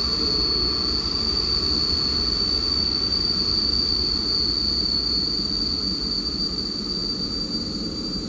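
Electric-locomotive-hauled passenger train slowing along a station platform, its brakes giving one steady high-pitched squeal over the low rumble of the wheels, the squeal easing slightly near the end.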